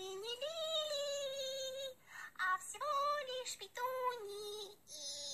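A high-pitched voice singing a few long held notes, with short breaks between phrases and a brief hiss near the end.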